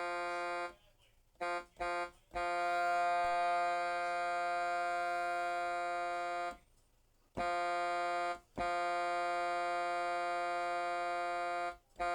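Truck horn sounding in separate blasts at one steady pitch: one blast stops just after the start, then come two quick toots, a long blast of about four seconds, a one-second blast, another long blast of about three seconds, and a short toot near the end.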